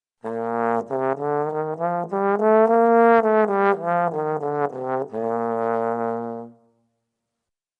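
Trombone playing a short phrase of separate notes that climbs and comes back down. It ends on a low note held for about a second and a half, then stops.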